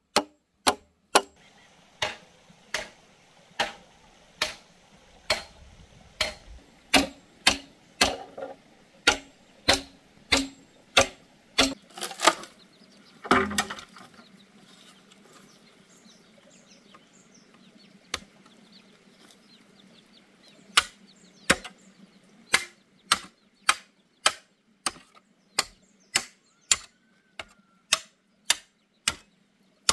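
Machete chopping into green bamboo: sharp, evenly spaced strikes about every half-second to second, with one heavier thump about 13 seconds in, a pause of several seconds, then the chopping resumes.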